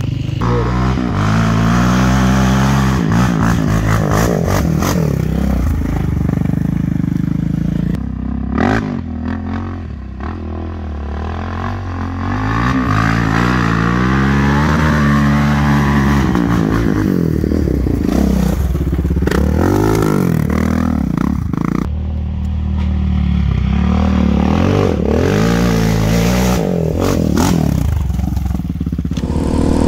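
Sport ATV engines revving hard and easing off again and again in surges as the quads climb a loose dirt hill, with dirt and stones scraping and clattering under the tyres.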